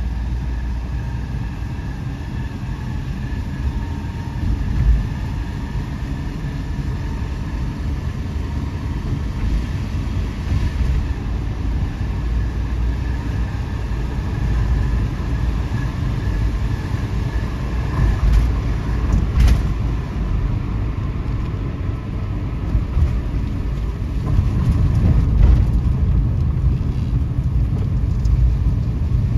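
Kei van driving, heard from inside the cabin: a steady low rumble of engine and road noise.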